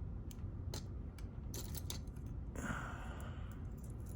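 Small metal clicks and taps of a key being tried against a JPM pump lock that is jammed halfway turned, so the key will not go in, with a brief scrape a little past halfway. A steady low hum runs underneath.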